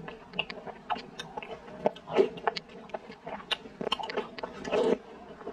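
Close-miked chewing of soft, sticky glutinous rice balls: irregular wet mouth clicks and smacks, with a couple of louder smacks about two seconds in and near the end.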